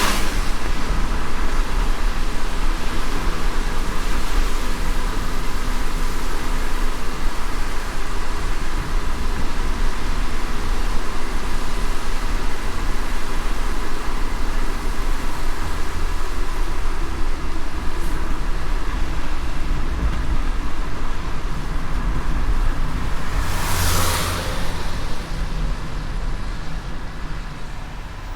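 Car driving in the rain: a steady hiss of rain and tyres on a wet road over a low road rumble. A louder whoosh about three-quarters of the way through, then the sound eases off a little.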